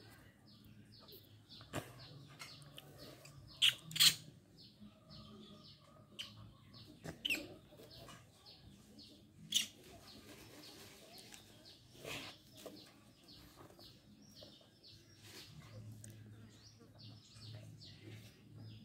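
Birds chirping over and over, faint and quick, several chirps a second, with a few sharp clicks breaking in, the loudest about four seconds in.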